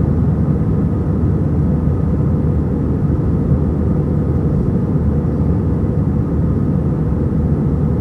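Airbus A320 cabin noise during the climb: a steady low rumble of the jet engines and airflow, heard from inside the cabin.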